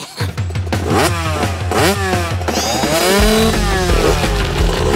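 Cartoon motor sound effect revving up and down over and over, over a steady low hum, as a one-wheeled vehicle speeds around.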